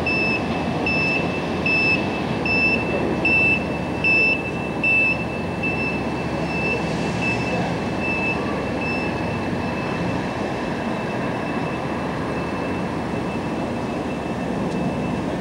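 City street traffic noise, a steady rumble, with a high electronic beep repeating a little more than once a second. The beeps grow loudest a few seconds in, then fade away.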